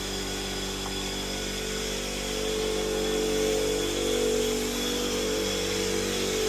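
A motor running steadily with an even hum; about two and a half seconds in, a higher tone joins it and swells slightly.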